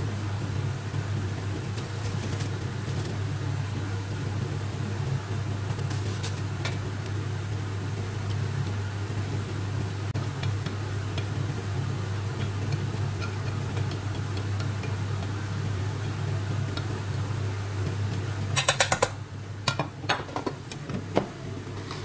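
A steady low hum from a running fan or motor, which drops away near the end. A quick run of sharp clicks and a few knocks follows, as the air fryer basket is slid back into place.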